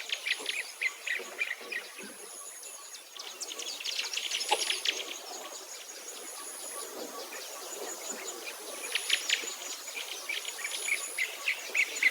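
Outdoor ambience of songbirds chirping and singing, over a thin, high insect trill that starts and stops in stretches of a second or so.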